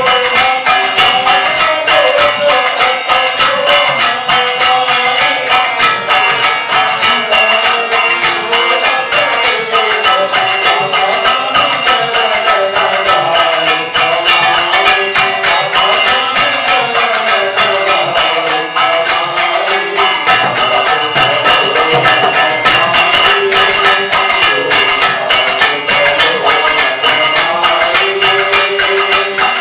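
A Hindi devotional bhajan sung live by a male voice, backed by a fast, steady jingling hand-percussion rhythm and a barrel drum.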